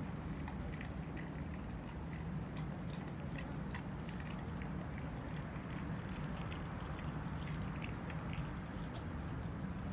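A German Shepherd puppy chewing raw chicken: wet chewing with many short, irregular clicks. A steady low hum runs underneath.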